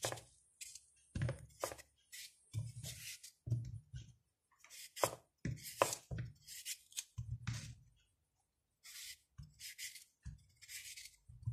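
Kitchen knife slicing a raw peeled potato held in the hand into french-fry strips, each stroke a short crisp cut with the strip dropping into the bowl of cut strips below. Irregular strokes, about one or two a second, with a brief pause about eight seconds in.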